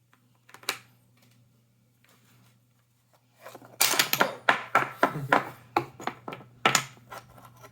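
Jigsaw puzzle pieces clattering as they are dropped and tossed together: a single click about half a second in, then a quick run of sharp clacks from about four seconds in.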